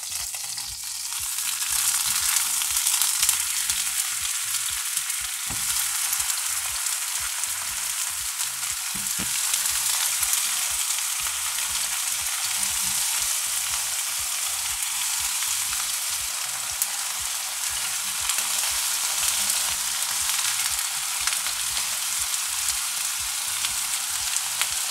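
Red chicory halves and garlic cloves frying in duck fat in a nonstick frying pan: a steady sizzling hiss that grows louder over the first couple of seconds and then holds, with a few faint knocks.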